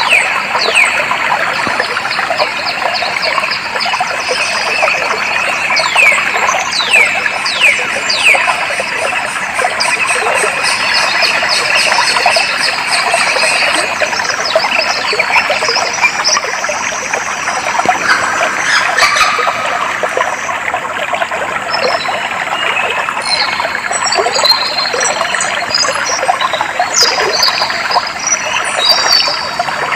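A stream of flowing, trickling water runs steadily, with birds singing over it: a series of quick falling whistles in the first several seconds and a cluster of short high chirps near the end.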